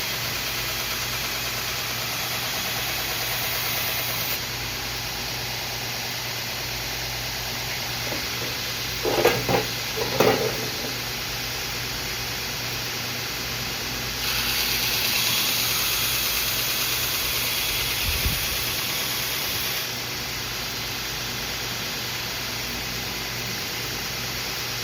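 Grizzly 2x42 variable-speed belt grinder running steadily with an even motor hum. A steel knife blade is held against the belt twice, giving a brighter grinding hiss for about the first four seconds and again from about 14 to 20 seconds in, with a couple of short louder sounds around 9 to 10 seconds.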